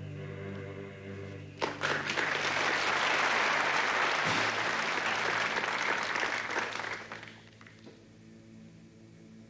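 Audience applauding, starting suddenly about one and a half seconds in and dying away a second or two before the end, over a sustained low musical drone.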